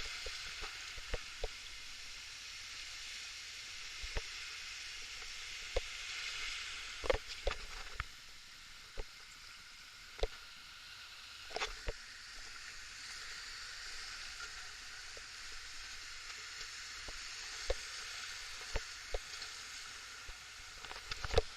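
Steady rush of river water, with scattered sharp knocks and clicks here and there, loudest near the end.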